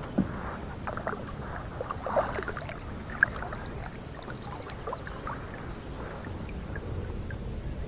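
Light knocks, clicks and rustles of a fishing kayak and its gear being handled, with a sharp tick about three seconds in and a short run of rapid high ticks a little after four seconds.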